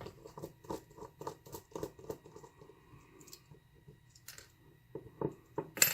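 Small metallic clicks and taps from a pin-tumbler lock being handled as it is taken apart. A quick run of light clicks, about six a second, is followed by a few scattered clicks and one louder click near the end.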